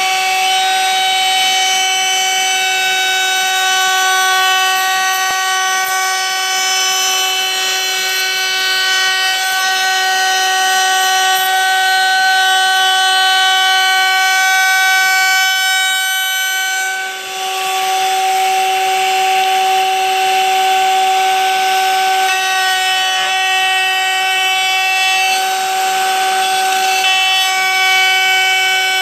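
Overhead pin router running at speed with a steady high whine, its custom bit cutting a Honduras mahogany guitar neck blank as it is fed along a template. The rasping cutting noise swells a little past halfway and again near the end.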